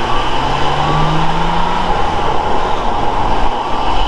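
BMW M4 Competition's S55 twin-turbo inline-six with Eventuri intakes, heard from the front of the car while driving. The engine note rises gently for about two seconds, then sinks into steady road and wind noise.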